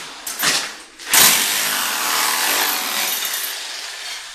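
Rotary hammer chiselling ceramic floor tiles loose: a short burst, then a steady run of about three seconds that eases off slightly before stopping.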